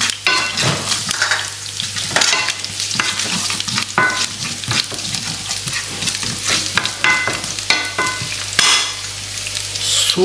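Chopped garlic and whole spices sizzling in hot oil in a non-stick frying pan, with short scrapes and knocks of a spoon as they are stirred.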